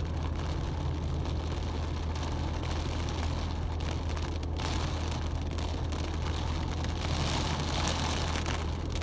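Car engine idling with a steady low hum, heard from inside the cabin, under the hiss of heavy rain on the windscreen and body. The rain hiss swells about seven seconds in.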